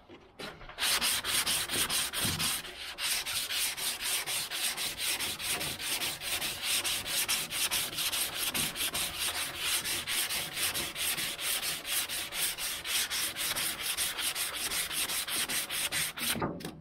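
Hand sanding block with coarse 40-grit sandpaper scraping back and forth over cured Bondo-type body filler (U-Pol Lightweight Gold) on a steel car body panel, about four strokes a second. The sanding starts about a second in and stops just before the end. It is knocking the hardened filler down to shape.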